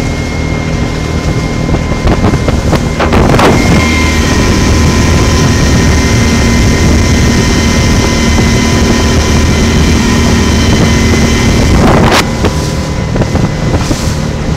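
Speedboat engine running steadily at speed, with rushing water and wind buffeting the microphone. Two brief louder splashes or hull slaps break through, a few seconds in and again near the end.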